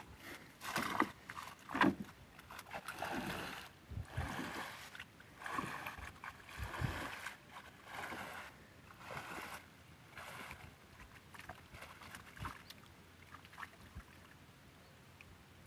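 Wading through shallow swamp water: irregular sloshing and splashing steps, busiest over the first ten seconds or so, then sparser and quieter.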